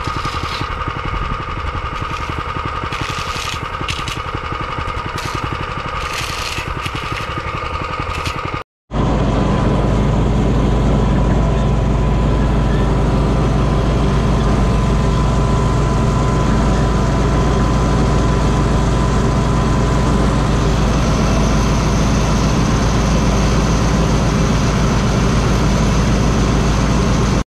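Paving equipment engines running steadily. About nine seconds in, a louder, deeper engine drone takes over.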